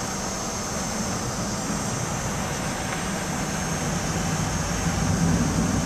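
Steady cabin noise inside a Boeing 757 taxiing: engines running and cabin air, with a low hum and a faint high whine. The hum grows a little louder near the end.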